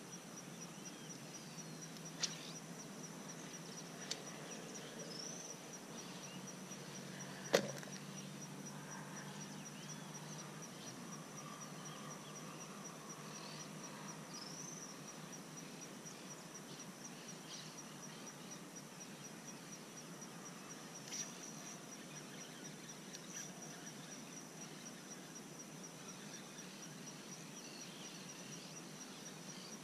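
Faint outdoor ambience by a pond: a steady high-pitched buzz with a few short bird chirps, broken by a few sharp clicks, the loudest about seven and a half seconds in.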